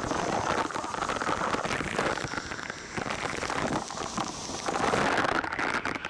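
Waterfall pouring down at close range: a steady, dense rush of falling water splashing onto rock and into the pool, heard from right beneath the fall.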